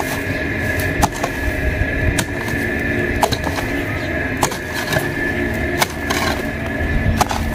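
A long-handled hand hoe chopping into dry, hard soil to dig a small hole, with about six blows roughly a second apart, each a short thud and scrape of the metal blade in the earth.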